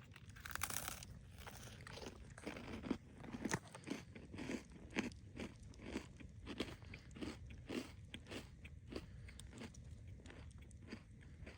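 Close-up crunching of a dry, cracker-like ice cream sandwich as it is bitten into and chewed. There is a louder crunch near the start, then steady chewing about twice a second that grows fainter toward the end.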